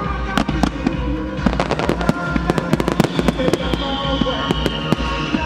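Aerial firework shells bursting and crackling in rapid, irregular bangs over music playing through loudspeakers.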